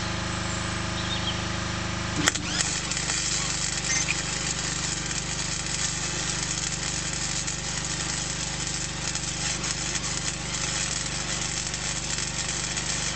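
A steady motor hum, then a sharp click about two seconds in, after which the welding arc crackles continuously as a weld is laid on thin car-body panel, the hum carrying on underneath.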